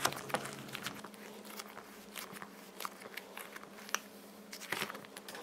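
Soft green squishy stress ball being squeezed and kneaded in the hands: faint, irregular crackling and squishing clicks.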